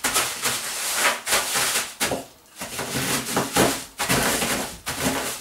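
Wooden rolling pin rolled back and forth over shelled walnuts in a plastic bag on a wooden table, crushing them: rustling, crunching strokes, about five in all.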